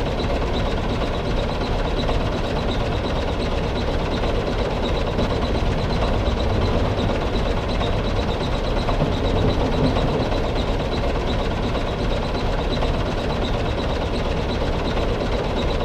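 Small electric gear motor of a mini DIY toy tractor running steadily, with a light regular ticking from its gears.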